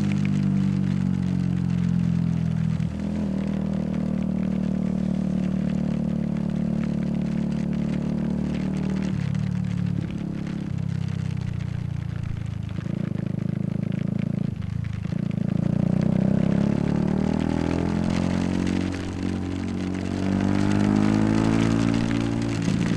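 Yamaha YZF-R125's 125 cc single-cylinder four-stroke engine running under way at fairly steady revs. Its note steps up and down several times as the throttle or gear changes.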